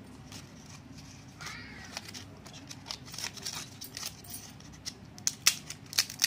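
A roasted urad dal papad being snapped and crumbled by hand: a run of dry, sharp cracks, scattered at first and coming thick and fast near the end. It is the crunch of a well-dried, crisp papad.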